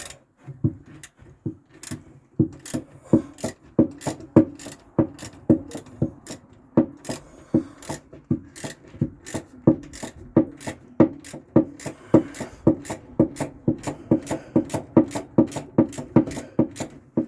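A hand tool worked back and forth in steady rasping strokes, about two to three a second, getting slightly faster in the second half.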